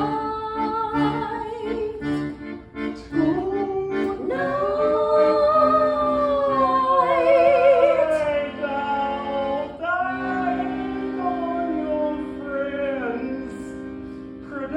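Accordion playing pulsed chords, then accompanying a singer who holds long notes with vibrato.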